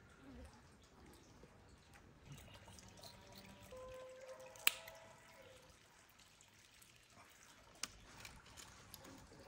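Scissors snipping small raw fish: a few quiet snips and clicks, the sharpest about halfway through and another near the end.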